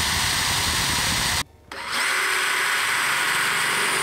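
Power drill with a 3.5 mm bit drilling screw holes through the readout's base-plate holes into the planer. It stops briefly about one and a half seconds in, then runs again more evenly.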